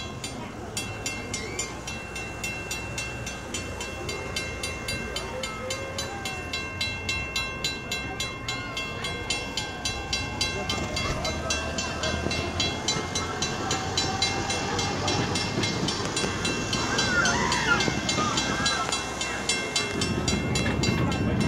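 Small park train running past on its track, with a steady rhythmic clatter of about two beats a second over a steady high whine, growing louder toward the end as it comes close.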